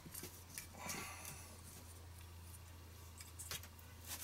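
A few faint, short metallic clicks and taps from hands working the screws and tools on a sheet-metal motor bracket, over a low steady hum.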